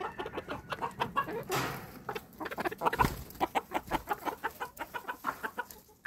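Silkie chickens clucking, a quick, busy run of short clucks from several birds at once.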